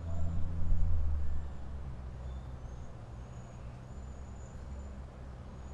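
Low engine rumble of a motor vehicle, loudest for the first second and a half, then easing to a steady low hum, with faint short high chirps above it.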